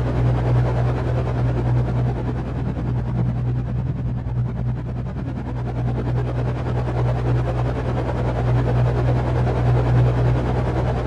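Steady low engine drone with a constant hum and rumbling noise, holding level throughout.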